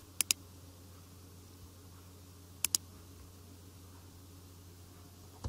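Computer mouse double-clicked twice, the two double-clicks about two and a half seconds apart, over a low steady hum.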